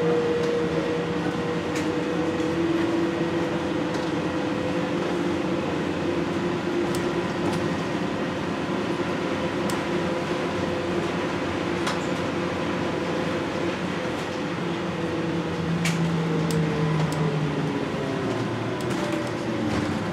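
NAW trolleybus under way, heard from inside: a steady electric whine of several held tones over road and body noise, the tones sliding in pitch in the last few seconds as the bus changes speed. Scattered sharp clicks and rattles.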